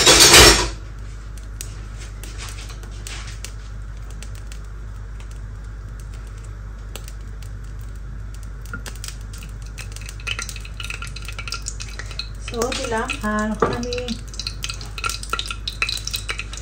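Metal spoon clinking and scraping in a small frying pan of hot ghee, with a light sizzle. There is a loud clatter right at the start, and the clinking and scraping grows busier in the second half.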